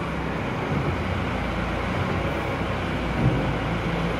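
An engine running steadily at an even speed, with one small knock about three seconds in.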